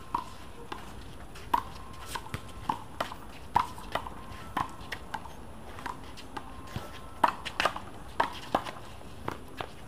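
One-wall handball rally: an uneven run of sharp smacks, about two a second, as the small rubber ball is struck by hand, hits the wall and bounces on the concrete court, with short squeaks in between.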